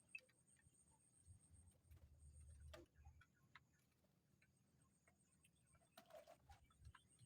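Near silence: faint scattered clicks and ticks, with a brief low rumble a little over a second in and a short rustle about six seconds in.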